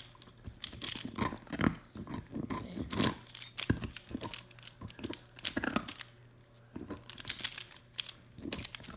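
Plastic Pyraminx puzzle being twisted rapidly by hand during a speed-solve: a quick, irregular run of clicks and clacks as its pieces turn and snap into place.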